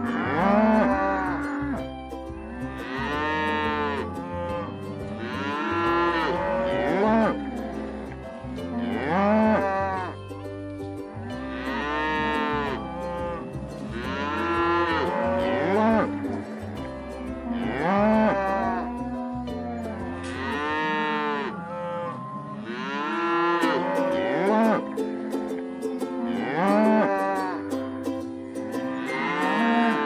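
Cattle mooing over and over, one loud rising-and-falling moo every two to three seconds. A low steady rumble lies under the first two-thirds and stops about two-thirds of the way through.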